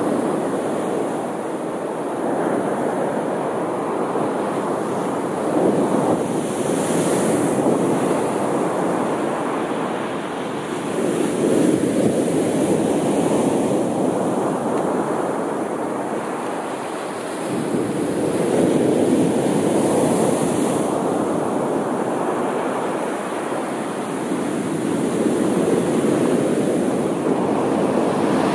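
Sea waves breaking and washing up the shore, in slow swells every six to eight seconds, with a brighter hissing wash twice.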